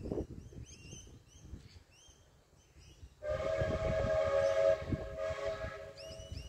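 The whistle of C17-class steam locomotive 967 sounds about three seconds in: a sudden long blast of several steady tones over a hiss of steam, strong for about two seconds, then weaker and fading toward the end. Birds chirp before it.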